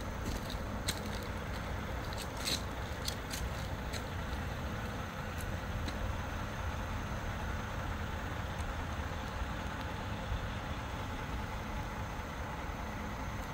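A few light footsteps on gravel in the first few seconds, over a steady low rumble that runs throughout.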